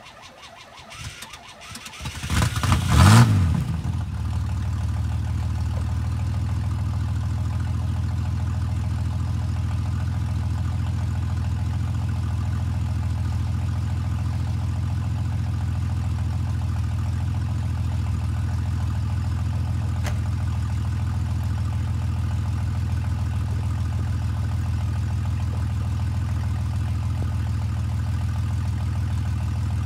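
1983 GMC S15 pickup's engine cold-starting: it catches about two seconds in with a quick rev, the loudest moment, then settles into a steady idle.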